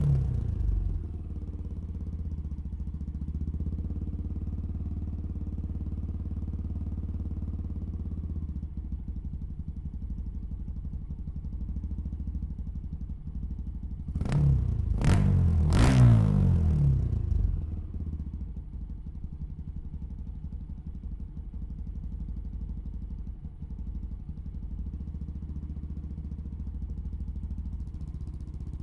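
1987 Honda XL250R's single-cylinder four-stroke engine, fitted with a custom exhaust and cone filters, idling steadily. It drops back to idle in the first second. A few quick throttle blips rise and fall about halfway through, then it settles back to idle.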